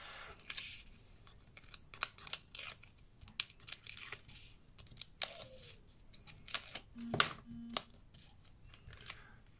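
Tape being peeled off the edges of a paper card panel in a series of short rasping pulls, with paper rustling and small clicks as the strips come away.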